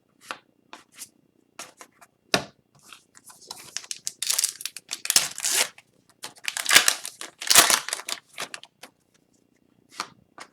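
A hockey card pack's wrapper being torn open and crinkled, with cards handled: a run of short rustles and clicks, busiest in the middle.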